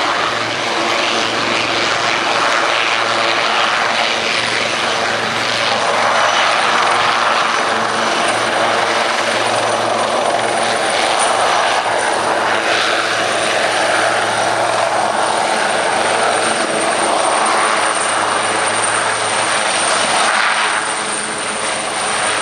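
A pair of Westland Wildcat twin-turbine helicopters flying in close formation, with steady rotor and engine noise; the sound eases slightly near the end.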